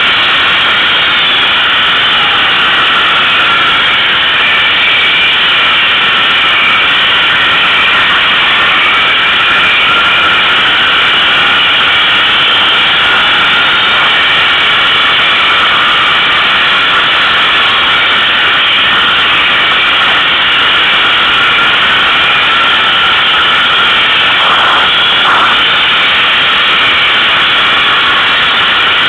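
ATV engine running steadily while the quad is ridden along a trail. It is loud and holds an even pitch throughout, with no revving up or down.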